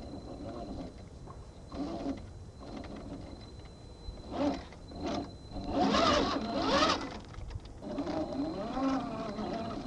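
RC4WD Trail Finder 2 scale crawler's electric motor and geared drivetrain whining in bursts, its pitch rising and falling as the throttle is worked on a rocky climb. The loudest bursts come about six to seven seconds in.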